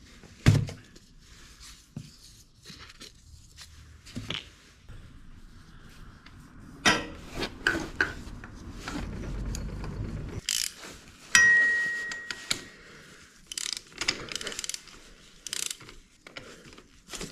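Hand tools working on a motorcycle's sump plug and oil filter: scattered clicks and knocks with a ratchet-like mechanical clicking. There is a sharp knock about half a second in, and a metallic clink about eleven seconds in that rings on briefly.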